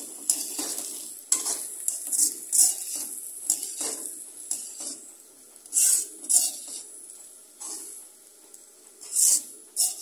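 A perforated metal skimmer scrapes and clatters against a metal wok as potatoes are stirred and tossed, in irregular strokes, some much louder than others. Underneath is a steady sizzle of frying.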